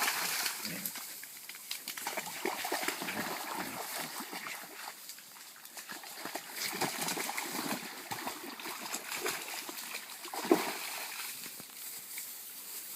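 Water sloshing and splashing irregularly as a puppy wades in river shallows, with one louder sudden splash about ten and a half seconds in.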